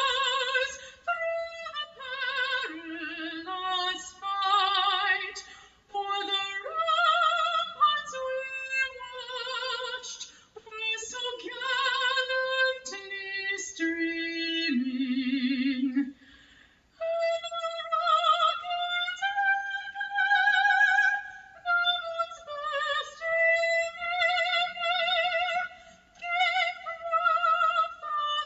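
Music: a woman singing a slow melody, holding long notes with a wide vibrato.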